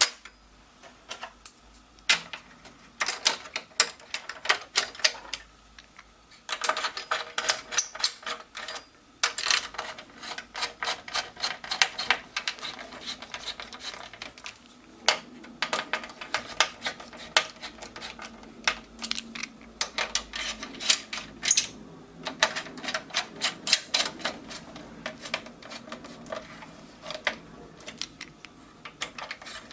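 Quick runs of small metallic clicks and taps: a screwdriver turning screws through copper heat-sink brackets into a PlayStation 3's metal chassis, with the brackets handled against the metal.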